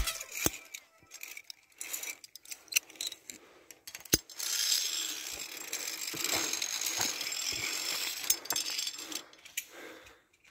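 Metal via ferrata carabiners clicking and scraping on the steel safety cable as they are moved past an anchor, in scattered sharp clicks. From about four seconds in, rustling and scuffing of footsteps over rock and dry grass join them.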